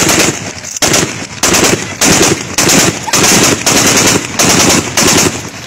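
Loud automatic gunfire: a string of short bursts of rapid shots, each about half a second long with brief gaps between, stopping shortly before the end.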